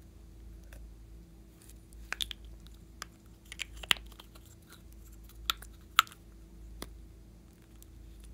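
A metal lipstick tube and plastic toys being handled, giving scattered sharp clicks and taps, the loudest about four and six seconds in, over a faint steady hum.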